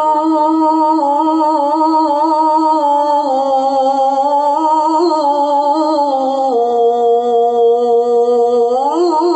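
A man's voice in Qur'an recitation (tilawah), holding one long ornamented note with vibrato that steps down in pitch twice, then glides up near the end.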